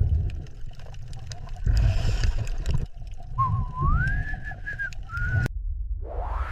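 A whistled note that glides upward and holds for about two seconds over low rumbling noise, then cuts off abruptly; a rising sweep starts near the end.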